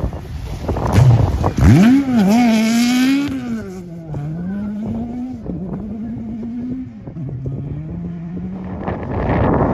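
Off-road rally car's engine revving hard, its pitch climbing and dropping back several times as it changes gear, with a rushing noise before and after.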